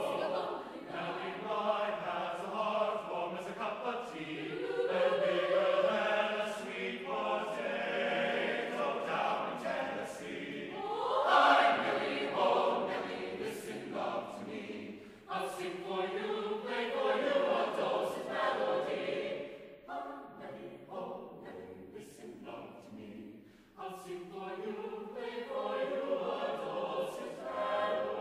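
Mixed choir of men's and women's voices singing in harmony. The voices swell in a rising swoop to the loudest point about 11 seconds in, drop to a softer passage about 20 seconds in, and return to full sound about 24 seconds in.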